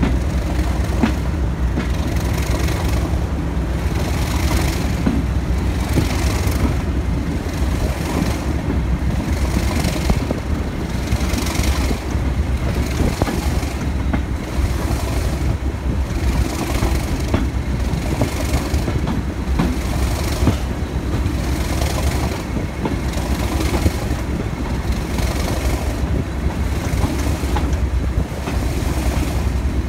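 English Electric Class 37 diesel locomotive, its V12 engine working hard under power as it pulls away (the full-power 'thrash'), heard from the coach just behind it. A brighter pulse recurs about once a second over the steady rumble.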